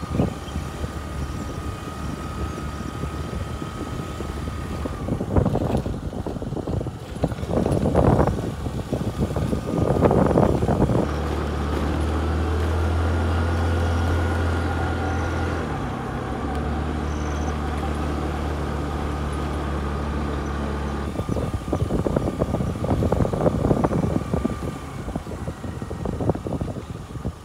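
A motor vehicle driving off-road, its engine running with a steady low hum. There are bursts of knocks and rattles from bumps in the track early on and again near the end. The hum is smooth and steady through the middle stretch, with a brief dip partway through.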